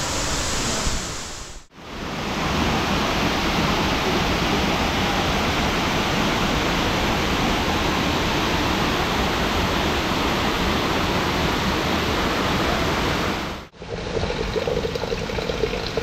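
Steady rush of running water, cut off abruptly twice where the sound changes shot.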